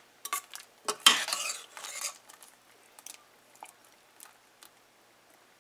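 Metal spoon scraping and clinking against a stainless steel pot while stirring dough pieces through thick dal, in a few scattered strokes, loudest about a second in and fainter taps later.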